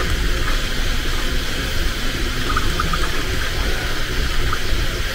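Bambu Lab 3D printer running mid-print: a steady whir of fans and motors, with a few faint short ticks.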